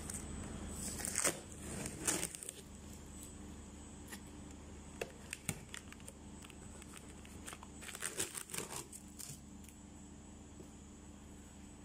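Packaging being torn open and crinkled by hand while unboxing a high-pressure washer: bursts of tearing and rustling about a second in and again around two seconds in, another cluster around eight to nine seconds, with small handling clicks between.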